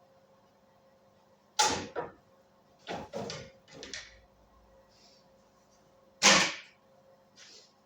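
Birds coming and going at a window-mounted feeder: a run of short whooshing flutters and knocks, the two loudest about one and a half and six seconds in.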